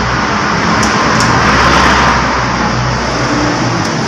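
Steady vehicle or traffic noise with a low hum, swelling slightly in the middle, and a couple of faint clicks about a second in.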